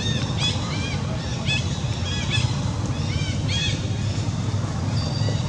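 A macaque giving a quick series of short, high, arching squealing cries, about six or seven of them, that stop about four seconds in. A steady low rumble runs underneath.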